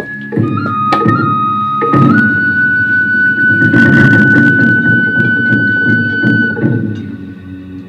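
Instrumental music: a single high wind-instrument line holds one long note, stepping up in pitch in the first two seconds, over a dense low accompaniment with a few soft knocks.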